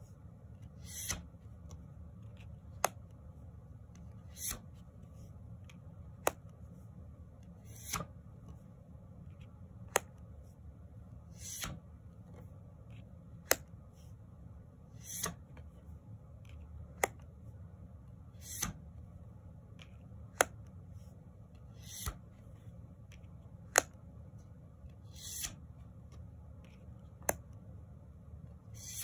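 Cards of a tarot deck flipped off the top one at a time, about one card every three and a half seconds. Sharp card-stock clicks alternate with softer brushing swishes, roughly every second and a half to two seconds, over a faint steady room hum.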